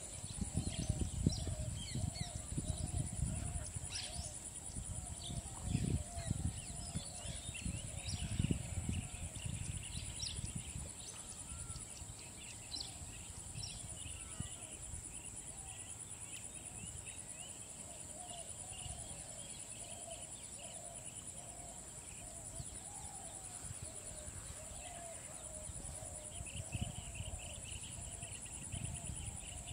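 Birds calling over and over in short wavering calls and higher chirps, over a steady high insect buzz, with bursts of low noise in roughly the first nine seconds.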